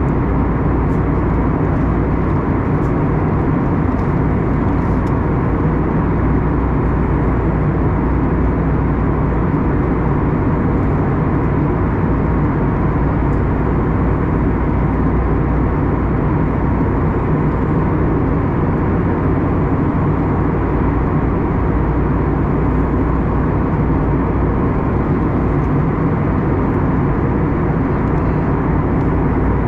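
Steady cabin noise inside an Airbus A321neo in flight: a constant deep roar of engines and airflow with a faint, even hum, unchanging throughout.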